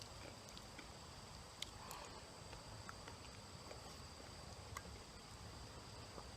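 Near silence: faint room hiss with a steady high-pitched whine and a few faint clicks.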